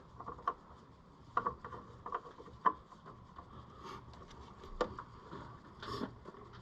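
Scattered light clicks, taps and rubbing of hand tools and parts being worked loose on a car engine, with a few sharper knocks about one and a half, two and a half and five seconds in.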